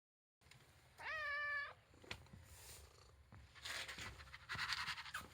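A male house cat meows once, about a second in, a single call held for just under a second. Later come two short stretches of noisy sound and a few light clicks.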